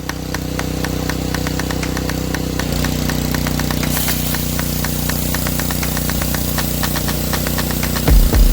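A pressure washer's small engine starts up and runs steadily with an even, rapid chugging, and its pitch dips slightly about three seconds in. A few heavy low thumps come near the end.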